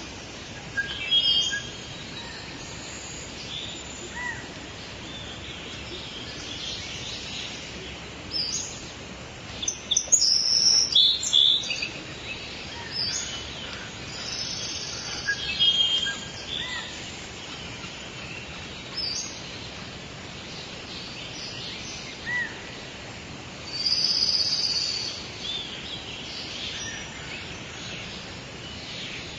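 Wild songbirds chirping and singing in short, scattered phrases over a steady background hiss. The loudest bursts of song come about ten to twelve seconds in and again around twenty-four seconds in.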